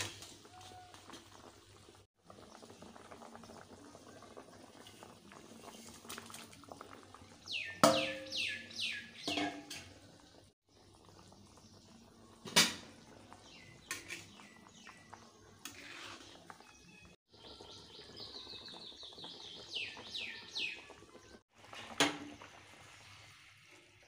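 Egg curry simmering and bubbling in a metal wok, with two quick runs of high falling chirps from a bird and a couple of sharp clicks.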